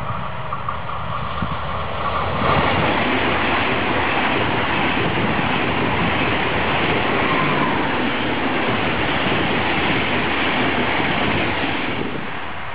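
ICE high-speed electric train passing close by at speed: a loud, even rushing noise of wheels and air that swells about two and a half seconds in, holds steady, then falls away near the end.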